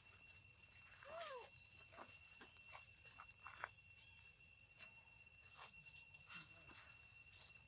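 Faint, steady high-pitched insect drone, with scattered soft rustles and ticks of dry leaves and one short chirp that rises and falls about a second in.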